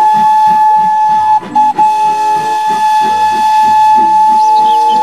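Whistle of a full-size Thomas the Tank Engine replica steam locomotive blowing long single-note blasts, broken twice briefly about a second and a half in.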